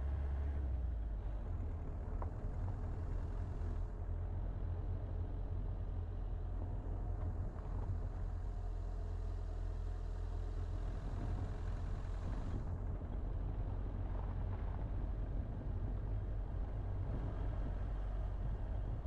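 Car driving along a worn asphalt road: a steady low rumble of engine and tyre noise with no distinct events.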